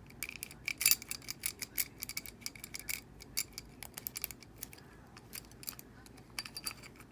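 Rake pick scrubbed through the four-pin keyway of a stainless-steel Brinks Discus R60 padlock under tension, making rapid small metallic clicks and scrapes. They come thick and fast for about three seconds, then more sparsely.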